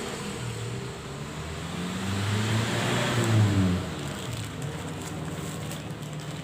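A motor vehicle passing by: its engine swells to a peak about three and a half seconds in, the pitch dropping as it goes past, then fades back to a steady background hum.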